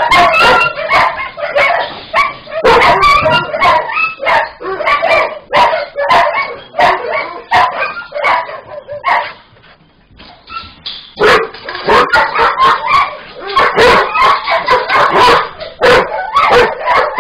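Many kennelled dogs barking at once, calls overlapping densely, with a short lull a little past the middle.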